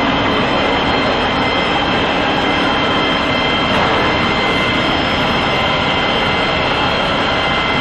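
Steady loud machine noise: a dense rushing roar with several high, steady whining tones over it, unbroken and unchanging.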